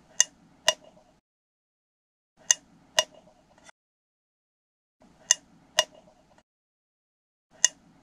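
Pairs of sharp, ringing metallic clicks, the two clicks about half a second apart, each pair repeating roughly every two and a half seconds.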